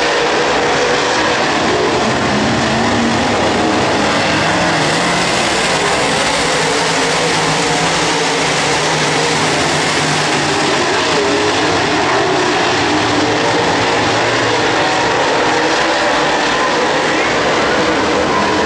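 A field of dirt late model race cars' V8 engines running together around the track. It is a loud, steady drone with several engine notes overlapping.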